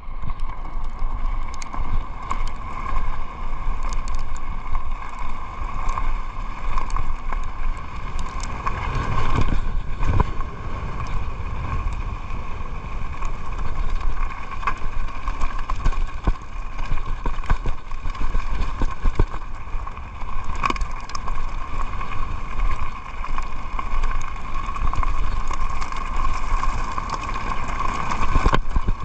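Mountain bike rolling fast down a loose gravel trail: tyres crunching over stones, frequent small knocks and rattles from the bike over bumps, and wind buffeting the microphone. A steady high whine runs underneath throughout.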